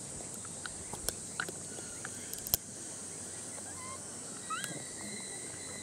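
Quiet outdoor ambience: a steady high hiss, a few sharp clicks, and a couple of short chirping calls about four and a half seconds in.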